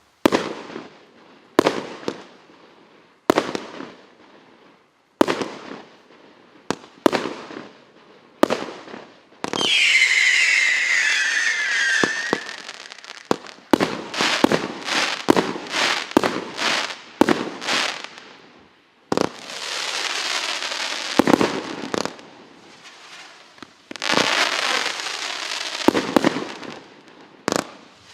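A 52-shot firework cake of 0.8, 1.0 and 1.25-inch tubes firing: a series of sharp launch bangs and bursts, a whistle that falls in pitch for about three seconds some ten seconds in, and later two dense runs of rapid shots.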